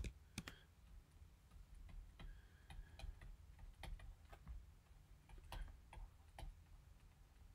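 Faint, unevenly spaced taps and clicks of a stylus on a tablet screen during handwriting, over a low steady hum.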